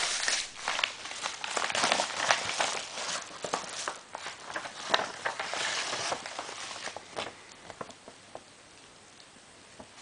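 Packaging being handled and opened by hand: rustling and crinkling with many small clicks and knocks, busy for about seven seconds, then dying down to a few faint ticks.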